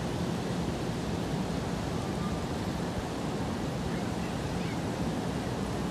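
Steady rushing noise of a sudden, strong wind-and-rain storm blowing in.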